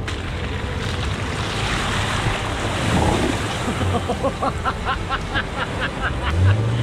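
Toyota four-wheel drive driving through a shallow water crossing: water rushing and splashing with the engine running low underneath, and wind on the microphone. From about four seconds in a quick run of short high chirps, about three a second, and the engine note rises near the end.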